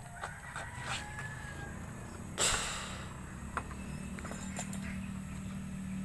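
Banana flower being handled, peeled and cut with a small knife: light clicks and scrapes, with one loud, short rustle of the fibrous bracts about two and a half seconds in.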